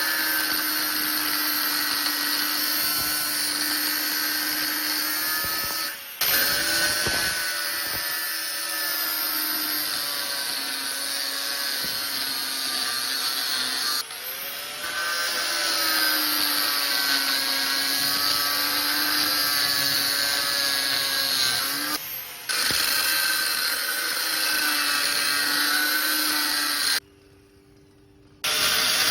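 A small electric power tool running continuously with a steady motor whine and a hissy high edge, its pitch wavering slightly. It cuts out briefly three times and stops for over a second near the end.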